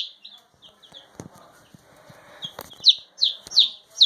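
Baby chicks peeping: short, high chirps that fall in pitch, sparse at first and coming louder and closer together in the second half. A few faint clicks sound between them.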